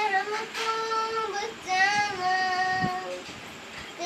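A boy singing a Hindi Christian devotional song solo, without accompaniment, in slow, long-held notes.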